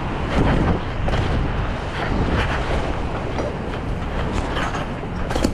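Steady noise of wind buffeting the camera microphone in heavy rain.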